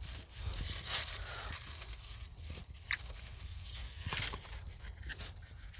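Irregular rustling and scraping handling noise with small clicks, over a steady low hum.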